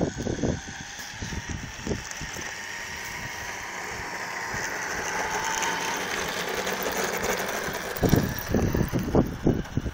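Small RC truck's motor whining steadily as it tows an RC plane along the tarmac, growing louder as it comes closer. Wind gusts buffet the microphone over the last two seconds.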